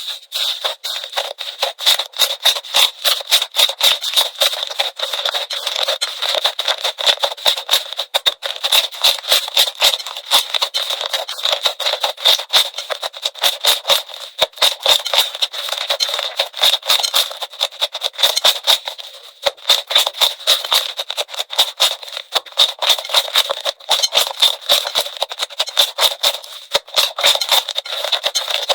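Slime being squished and pressed, a dense run of sharp clicks and crackling pops that eases briefly a couple of times.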